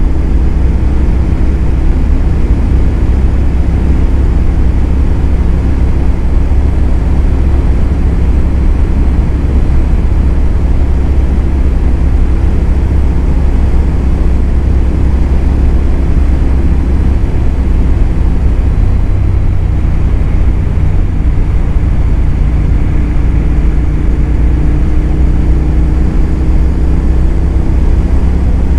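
Royal Enfield 650 parallel-twin motorcycle engine running steadily at highway cruising speed, with wind rushing over the microphone. The engine note rises slightly in pitch over the last several seconds.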